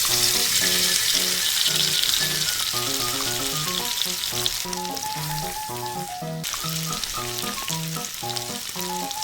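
Egg-and-flour-coated chicken pieces frying in hot cooking oil, a steady dense sizzle.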